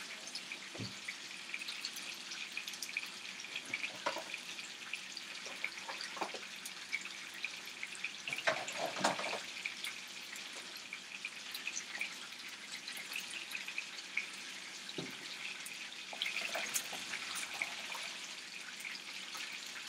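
Chicken thighs frying in bacon fat in a nonstick pan: a steady sizzle full of fine crackles and pops. A few light knocks and clicks of kitchen handling come through it, the loudest cluster near the middle.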